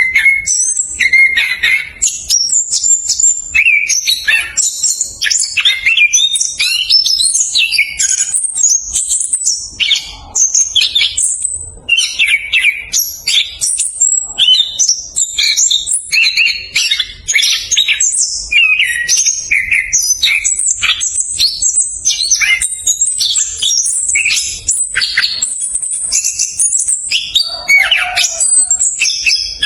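Orange-headed thrush singing a fast, close-packed rolling song ('ngerol speed rapat'): high whistled phrases follow one another almost without pause, with one short break about eleven seconds in.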